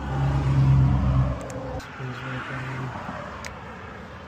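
A motor vehicle's engine running nearby: a low, steady hum that is loudest in the first second and falls away about two seconds in. A few light clicks sound over it.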